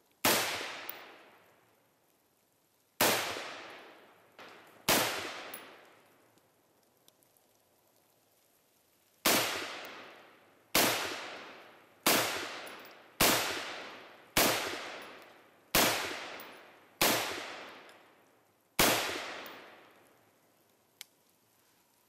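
Ruger AR-556 semi-automatic rifle in 5.56 firing about eleven single shots, each sharp report trailing off over a second or two. There are a few seconds between the first shots, then from about nine seconds in they come steadily, roughly one every second and a half.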